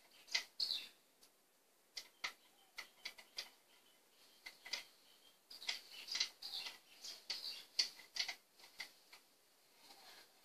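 Irregular light clicks and small knocks from an ICS M1 Garand airsoft rifle being handled, its parts clicking as they are worked. The clicks come more thickly in the second half.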